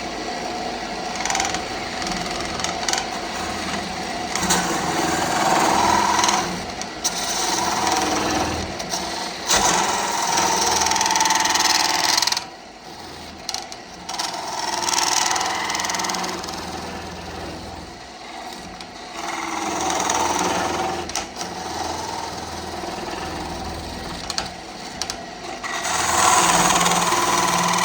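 Wood lathe running, with a turning gouge cutting the spinning wood in passes that swell and fade every few seconds; the cutting eases off for a moment about halfway through.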